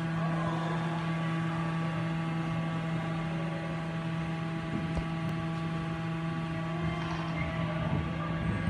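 A steady electrical or mechanical hum made of several steady tones, with a faint thud about five seconds in.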